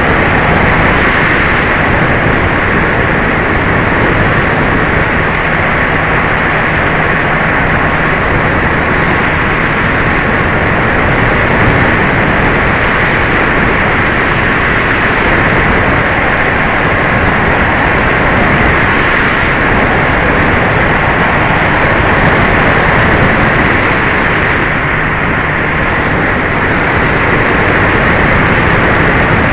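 Airflow rush and electric motor and propeller noise from an E-Flite Apprentice RC trainer plane in flight, picked up by its on-board FPV camera microphone: a loud, steady rushing sound with a faint steady whine.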